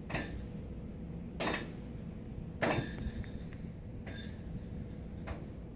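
Bells hanging on a string at the bottom of a patio door jingle five times, about a second apart, the third jingle the longest, as a cat rings them: his signal that he wants to go outside.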